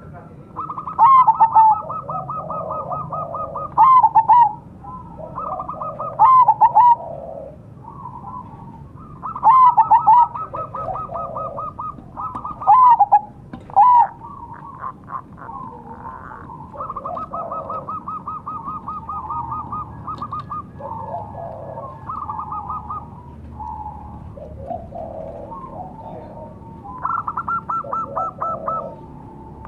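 Zebra dove (perkutut) singing its staccato cooing song. A rapid trill runs into loud, falling coo notes, repeated several times, with softer lower coos between.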